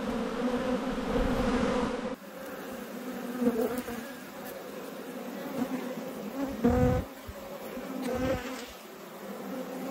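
Honeybees buzzing over an open hive: a steady, many-voiced hum. A single bee buzzes louder as it passes close about seven seconds in.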